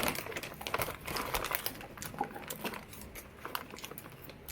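A quick run of small crinkles and crackles from crunchy onion-ring snacks and their packaging being handled and eaten.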